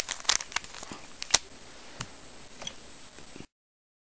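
Small plastic clicks and clacks of a Rubik's Cube being handled, quick and close together for the first second and a half, then sparse and fainter, until the sound cuts off abruptly.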